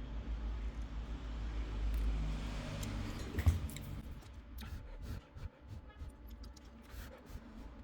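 Workbench handling noises: one sharp knock about three and a half seconds in, then scattered light clicks, over a low steady hum.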